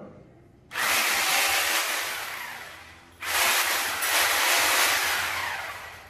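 Handheld electric angle grinder switched on twice in short bursts, each time running with a loud rushing whir for about a second and then winding down as it coasts to a stop.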